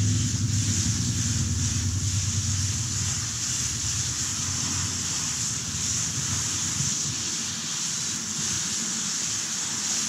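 Garden hose spray nozzle spraying water onto a horse's lower hind leg and hoof: a steady hiss of spray. A low motor-like hum fades away over the first few seconds.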